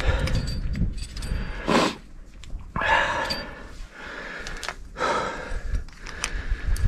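A rock climber breathing hard, several heavy breaths about a second or so apart, while metal climbing gear (cams and carabiners on the harness rack) clinks faintly.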